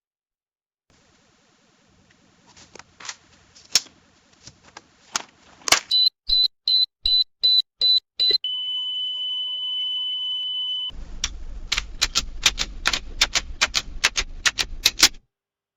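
Scattered sharp clicks like keys being pressed, then about six quick high electronic beeps. After that comes one long steady beep lasting a couple of seconds, then a run of rapid mechanical clicking over a low rumble that stops about a second before the end.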